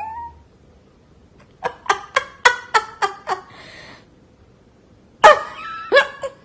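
Cat meowing in quick runs of short calls: one run about a second and a half in, then a louder call followed by more quick ones near the end.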